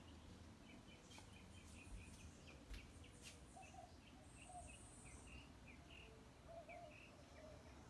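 Faint birdsong: many short, quickly repeated high chirps, with a few lower calls, over a low background rumble. A few light clicks come about one to three seconds in.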